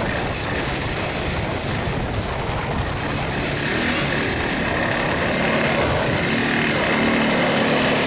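Quad bike (ATV) engine running under load as it drags a beach panel out of the surf on a tow rope. Heavy storm surf makes a steady rushing noise underneath.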